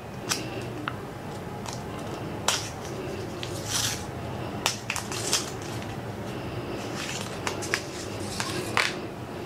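Protective paper covers being peeled off a new GoPro Hero 12 camera body: irregular crinkling and rustling with about a dozen sharp little snaps.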